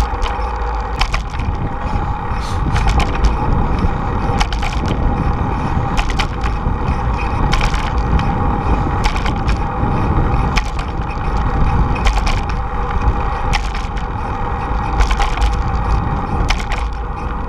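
Wind rushing over the microphone of a bicycle-mounted camera, with the tyres rolling on a paved path and irregular sharp clicks and knocks as the bike jolts over bumps and cracks in the pavement.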